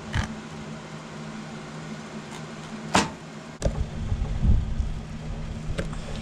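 Fillet knife working a flounder fillet off the bones on a plastic cutting board, with a few sharp taps and clicks: one at the start, two around three seconds in. A low rumble rises about halfway through, over a steady mechanical hum.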